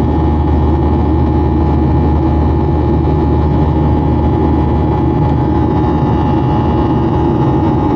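Jet airliner cabin in flight beside the wing: a steady roar of turbofan engine and airflow, with a thin constant whine over it.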